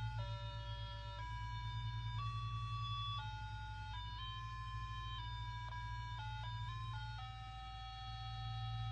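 A talking pocket calculator's built-in electronic melody playing through its small speaker: a single-voice beeping tune of held notes that change pitch every half second to a second, with a steady low hum underneath.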